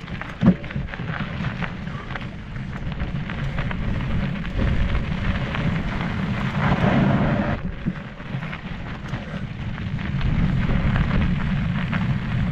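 Wind rumbling on the camera microphone of a mountain bike in motion, over the crunch and rattle of the tyres and bike on a loose dirt and gravel trail. It dips briefly partway through and gets louder near the end.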